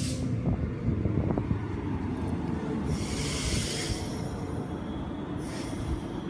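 Queensland Rail electric multiple-unit train pulling into the platform and passing close by: a steady low rumble of wheels on rail, with a burst of hiss about three seconds in and a shorter one near the end.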